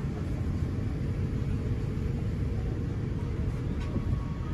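Steady low rumble inside an Airbus A350 cabin, the background of the aircraft's air-conditioning and ventilation.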